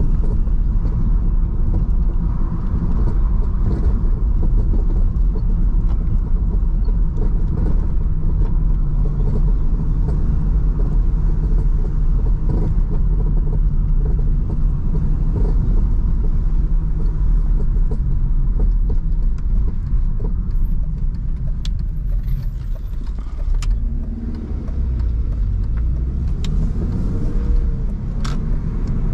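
In-cabin sound of a 1999 BMW 316i E46 on the move: its four-cylinder petrol engine running steadily under light load over a low tyre and road rumble. Near the end the engine note drops briefly and then rises again.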